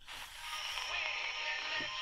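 Music from a distant AM station, WSM Nashville, coming through the small speaker of a Tivdio V-111 portable radio on medium wave at night. It comes in just as the station is tuned, rising over about half a second, with a thin steady high tone over it.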